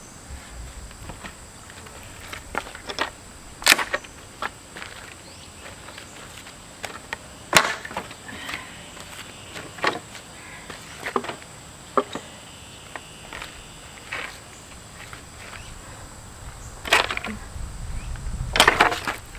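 Pallet boards being pried apart with a pallet buster: scattered sharp knocks and clacks of wood, the loudest about four seconds in, near the middle and just before the end, over a thin steady high tone.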